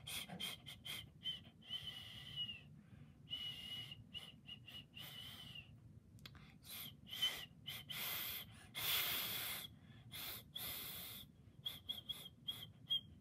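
A person trying to whistle: a string of breathy blows, most carrying only a thin, high whistle tone that barely comes through, the longest about a second.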